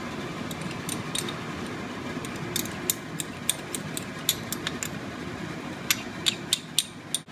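A run of sharp, light clicks and scrapes of a teaspoon against a small cup as cuttlefish ink is scraped out into the pan, most of them in the second half. A steady low background noise runs under them.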